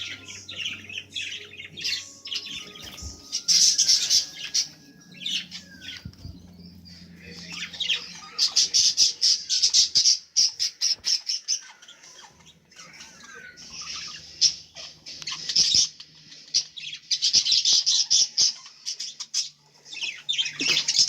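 A flock of budgerigars chattering and squawking in repeated bursts of fast, high warbling, loudest around four, nine to ten and seventeen to nineteen seconds in. A few clear held whistled notes come in the first six seconds, over a faint low hum.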